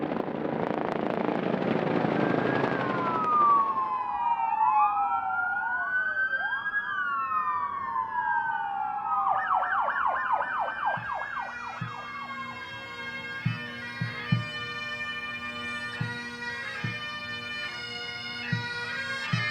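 Several police sirens wailing at once, overlapping and rising and falling, with a quick yelp pattern about ten seconds in, after a few seconds of passing vehicle noise. The sirens fade out and bagpipes take over, a steady low drone under a played tune.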